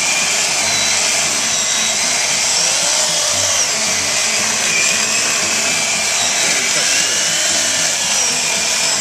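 Corded electric chainsaw running steadily at full speed while its bar cuts into a log.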